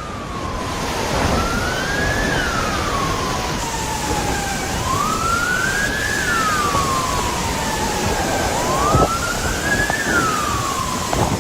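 Siren wailing: its pitch climbs quickly and then slides down more slowly, repeating about every four seconds, over a steady hiss of background noise.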